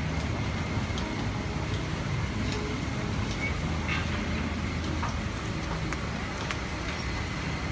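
Street ambience: a steady hum of traffic with scattered light knocks and clicks.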